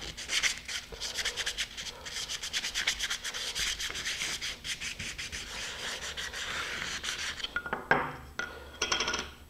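Sandpaper rubbed by hand over a fiberglass bulkhead disc in quick back-and-forth strokes, scuffing the surface for an epoxy bond. The sanding stops about seven and a half seconds in, and a few light knocks follow.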